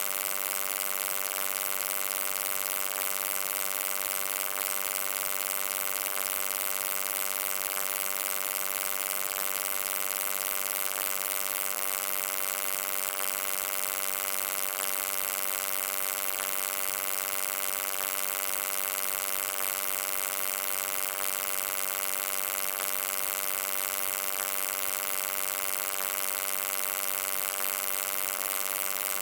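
Steady electric hum: a constant buzz with many evenly spaced overtones and a hiss above it, unchanging throughout.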